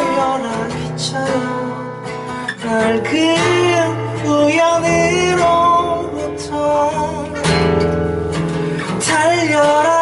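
A man singing a slow song in Korean, accompanying himself on a strummed acoustic guitar; his voice bends and wavers on held notes.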